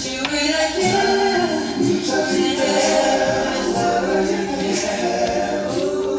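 Music: several voices singing together in harmony, with little or no instrumental backing.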